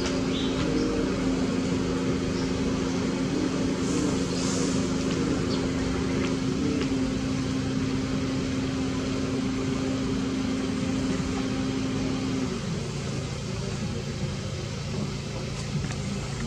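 A steady mechanical hum from a running motor, its pitch dropping lower about twelve seconds in.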